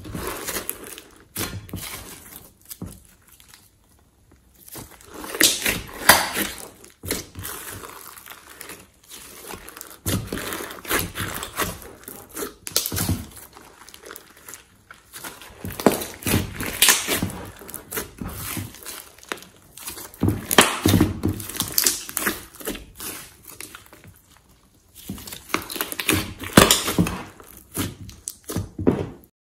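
Thick glossy slime being squeezed, stretched and folded by hand in a glass dish: wet squelching with dense crackling clicks, coming in bouts of a few seconds with quieter pauses between.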